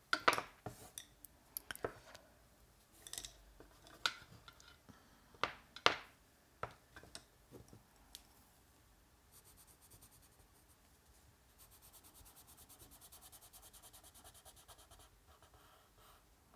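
Caran d'Ache watercolor pencils clicking against one another and their metal tin as they are picked through, a string of sharp clicks over the first several seconds. Later comes a faint, steady scratching of pencil lead on paper.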